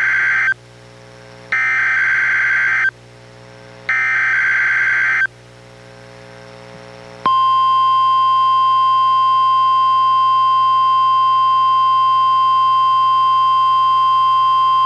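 NOAA Weather Radio emergency-alert signalling in a weekly test: the end of one buzzy burst of SAME header data, then two more identical bursts about a second apart. After a pause of about two seconds comes the steady single-pitch 1050 Hz warning alarm tone, which holds without a break.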